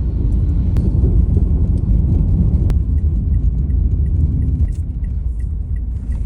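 Steady low rumble of a moving vehicle, with faint regular ticking about three times a second from about three seconds in.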